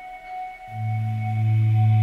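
Slow ambient background music of long held notes. A high tone rings throughout, and a deep low note comes in under it about two-thirds of a second in.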